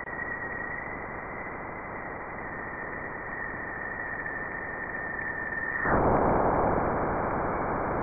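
NASA's sonified recording of Jupiter's radio emissions, shifted down into the audible range: a steady hiss with a thin high tone held through it. The tone stops about six seconds in and the hiss swells louder.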